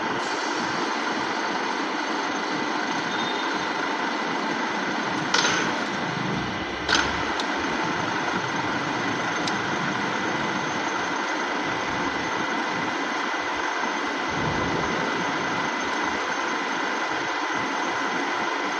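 Dufour 221 universal milling machine running steadily under power, a continuous motor and gear hum with steady whine tones, broken by two sharp clicks about five and seven seconds in.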